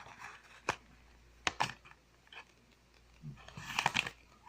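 Small packaging being handled and worked open to get at the power bank's charging cable: a few sharp clicks, then a short burst of crinkly rustling near the end.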